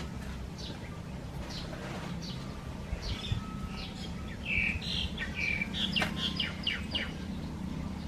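Small birds chirping: a run of short, high, quickly falling chirps that come thicker in the second half. A steady low hum runs underneath.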